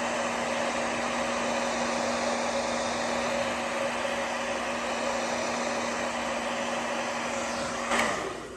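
Hairdryer blowing steadily on its low hot setting with an even hum, heat-shrinking a plastic bag around a remote control; it is switched off near the end.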